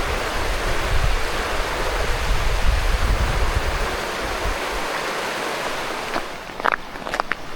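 Steady rushing wind with gusts buffeting the microphone, easing off about five seconds in; near the end, a few footsteps crunching on snow.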